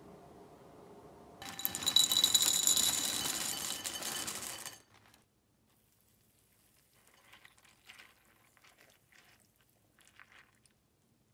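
Liquid poured into a glass for about three seconds, stopping abruptly, followed by faint small clinks and taps.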